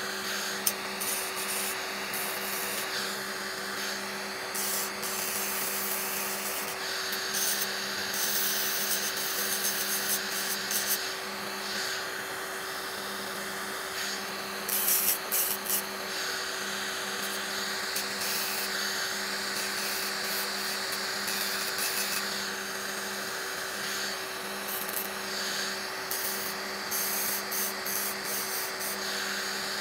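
Electric nail drill with a sanding-disc bit filing down gel on fingernails. The motor hums steadily, and a rasping scrape comes and goes as the disc is pressed to the nail and lifted off. There is a sharp click near the start.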